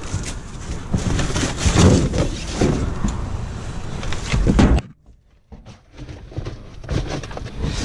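Cardboard boxes, paper and trash rustling, scraping and knocking as they are dug through and shifted by hand inside a dumpster. The sound cuts out to near silence for about a second, about five seconds in.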